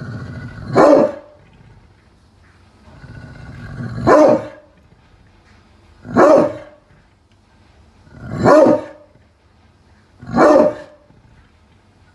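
Pit bull barking five times, single loud barks about two seconds apart. Low growling leads into the first two barks.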